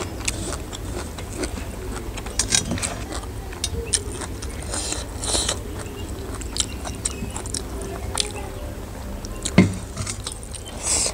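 Close-miked eating sounds: fingers mixing rice and curry on a metal plate, with many light clicks and scrapes, and chewing.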